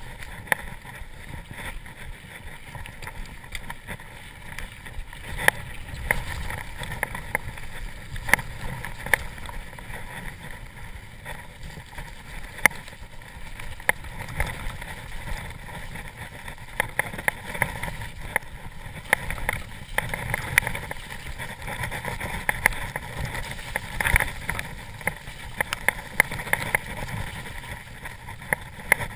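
Mountain bike rolling fast down a rough, muddy trail: a steady rumble of tyres and wind on the microphone, broken by frequent sharp clicks and knocks as the bike rattles over bumps.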